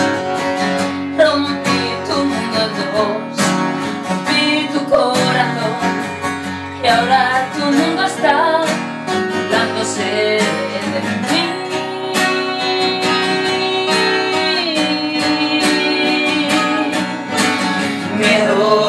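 Acoustic guitars playing a song live, strummed and picked, with no sung words. About two-thirds of the way through, a single note is held for a few seconds.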